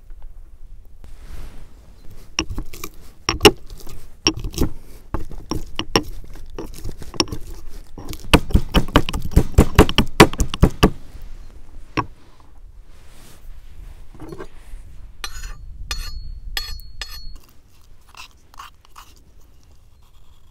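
Pestle pounding garlic in a mortar: scattered knocks, then a fast run of strikes several a second, then a few ringing clinks near the end.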